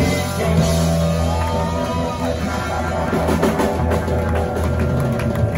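Live blues band playing, with electric guitar and drum kit over a heavy bass line.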